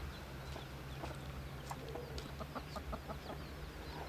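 Chickens clucking, with a quick run of clucks around the middle, and short high bird chirps scattered throughout, over a low steady hum.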